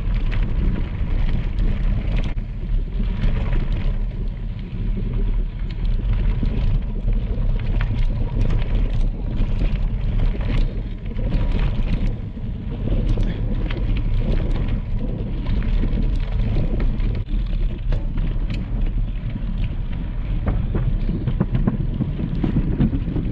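Wind buffeting the microphone of a bicycle-mounted action camera, with the bicycle's tyres crunching over a gravel trail in scattered sharp clicks and rattles.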